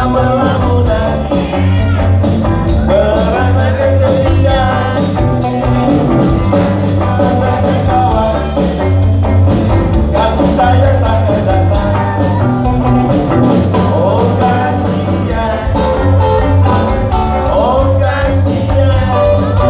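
Live band music: a man singing into a microphone over electric guitar, with a heavy bass line pulsing underneath.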